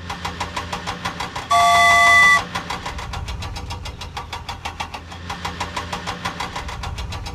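Cartoon vehicle engine sound effect: a fast, even chugging. About one and a half seconds in, a horn sounds once, loud and held for just under a second.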